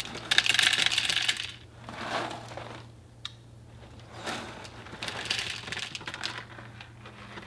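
Dry oat cereal poured from a cardboard box into a bowl on a kitchen scale, the pieces rattling into the bowl in several pours. The longest and loudest pour is in the first second and a half, with shorter ones after.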